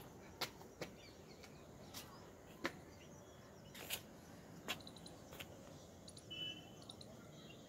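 Faint open-air ambience with scattered sharp clicks and a few brief high chirps, the clearest about six seconds in.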